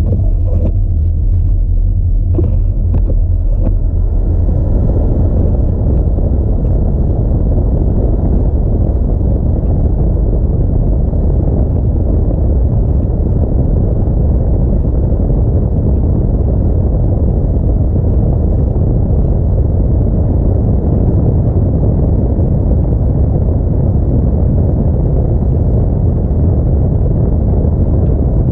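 Audi A4 on the move: a steady low rumble of engine, tyre and road noise, with a few short clicks in the first few seconds.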